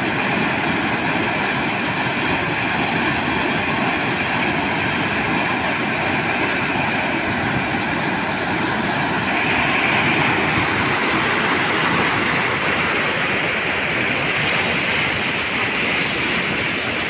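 Floodwater rushing and churning over a low concrete crossing: a steady, loud rush of water.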